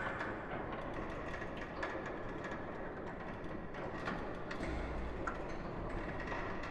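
Ghost-ship sound-effect ambience: a steady noisy wash with scattered creaks and clicks like a ship's old timbers and fittings, and a low rumble that comes in a little past halfway.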